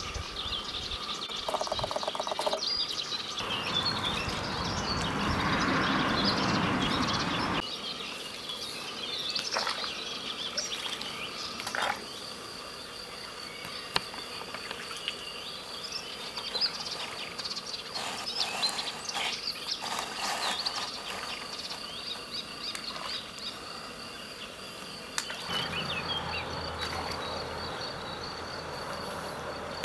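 Garden ambience: birds chirping on and off, with a steady high insect drone through the second half. A louder rushing noise lasts a few seconds near the start.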